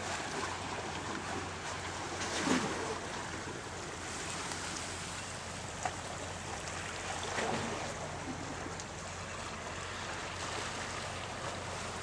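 Sea water washing steadily against the boulders of a rock jetty, with a few louder surges, the biggest about two and a half seconds in, and a short click near six seconds.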